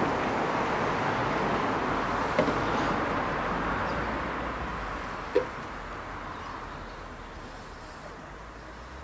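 Sizzling in a camp oven as coconut milk is poured over frying vegetables and curry paste, dying away gradually as the liquid cools the pan. A light knock comes about five seconds in.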